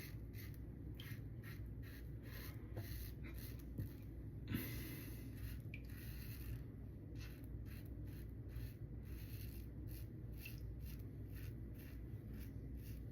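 Lambda Ares v2 open-comb safety razor scraping stubble through shaving lather in short, faint strokes, a few a second, with one longer stroke about four and a half seconds in.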